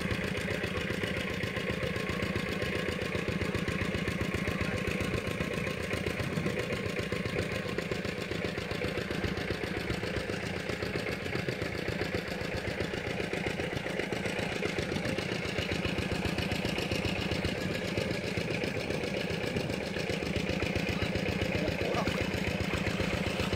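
A small engine running at a steady, unchanging speed, with a fast even pulse.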